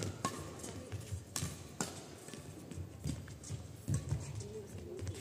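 Badminton rally: racket strings striking the shuttlecock in sharp cracks about once a second, with players' feet thudding on the court floor.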